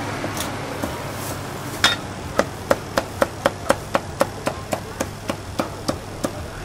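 Meat cleaver chopping through crispy-skinned Cantonese roast pork onto a wooden chopping block. One chop comes about two seconds in, then a quick, even run of about four chops a second.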